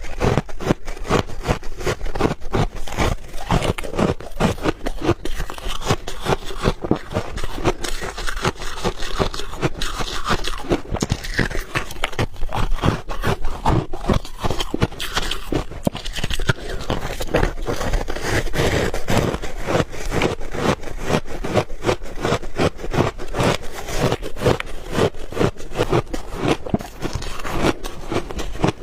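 Close-miked biting and chewing of ice balls: a dense, continuous run of sharp cracks and crunches.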